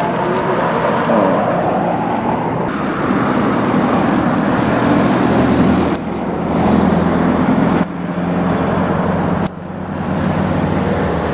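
A motor vehicle engine running steadily, a low hum with noise over it, changing abruptly a few times.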